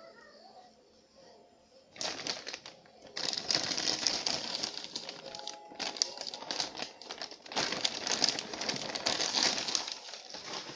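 Packaging crinkling and rustling as it is handled and opened, starting about two seconds in and going on in bursts with brief pauses.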